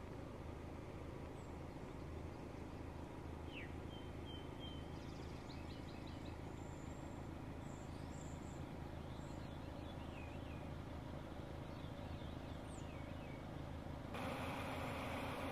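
Outdoor ambience of scattered small birds chirping and calling over a steady low hum. Shortly before the end the background cuts abruptly to a louder, even noise.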